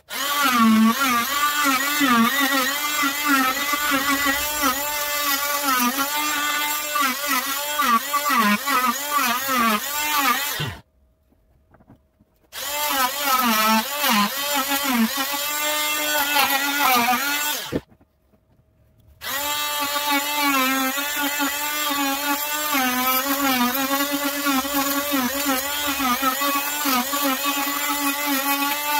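Wesco oscillating multi-tool running and carving wood, its motor whine wavering in pitch as the blade bites into the wood and eases off. It stops briefly twice, about eleven and eighteen seconds in, then runs on.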